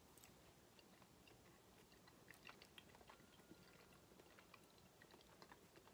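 Faint chewing: a person biting off and chewing a piece of soft white pepper cheese, with scattered soft mouth clicks.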